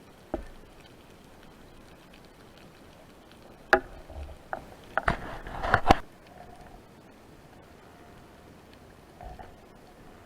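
A few sharp knocks and clicks over a faint steady hiss: one about half a second in, a loud one near the middle, then a quick cluster of them just after.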